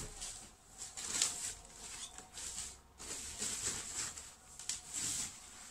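Packaging rustling in irregular bursts: a cardboard box and the laptop's white protective sleeve being handled and pulled apart.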